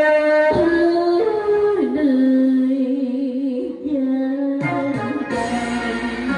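A woman singing through a microphone over backing music. She moves in steps between long held notes, sung with a wavering vibrato.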